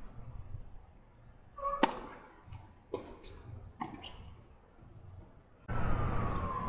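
Tennis ball struck by rackets during a doubles rally: several sharp pops roughly a second apart, the first the loudest. Near the end a louder rushing whoosh comes in.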